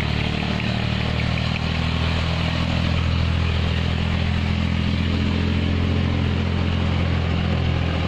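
Engine running steadily, a loud, even low drone with no change in pitch.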